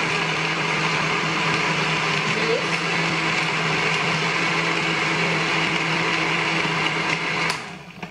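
Countertop blender motor running steadily at high speed, churning a thick mango, banana and orange shake in its glass jar. It is switched off about seven and a half seconds in and winds down quickly.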